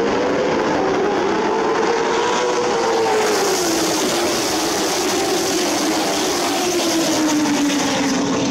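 A field of late model stock cars racing past, their V8 engines loud and continuous. The engine note climbs over the first two to three seconds, then falls slowly as the pack goes by.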